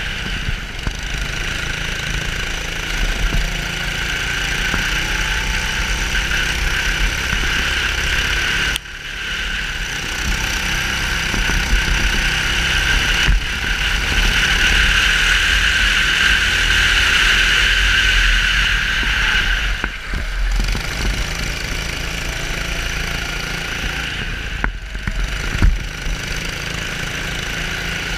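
270 cc four-stroke rental kart engine running at racing speed, heard from an onboard camera, with heavy vibration and rumble on the mount. The sound jumps abruptly several times.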